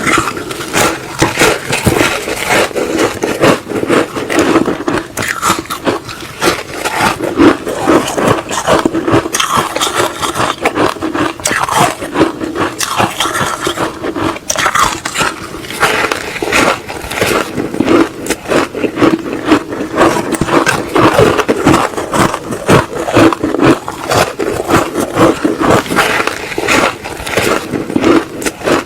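Close-miked biting and chewing of frozen matcha ice: a dense, continuous run of crisp cracks and crunches.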